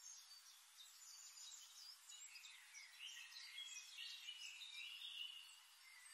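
Faint birdsong from a nature-sound recording: several small birds chirping and calling over a soft hiss.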